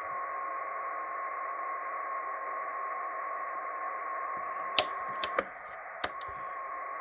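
Icom IC-R71 communications receiver's speaker giving off steady hiss with a steady whistle through it, the beat note of a carrier while tuning at very low frequencies. The whistle drops out briefly about five seconds in, and a few sharp clicks come near the end.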